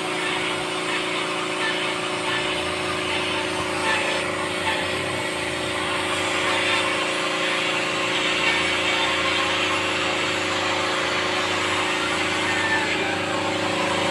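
A machine motor running steadily, a constant hum over an even hiss.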